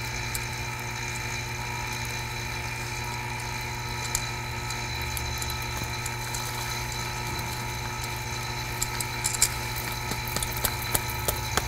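Pliers squeezing a corroded metal window channel, giving small crunching clicks as rust flakes break off, a few about four seconds in and more toward the end, over a steady machine hum.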